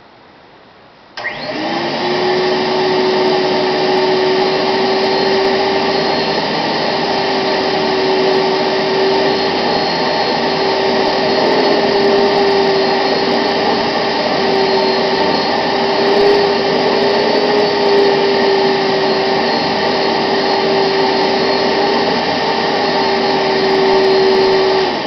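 Fairfax Fax-O-Matic vacuum cleaner switched on about a second in, its motor spinning up quickly and then running loudly and steadily with a steady whine over the rush of air. It is switched off right at the end and starts to wind down.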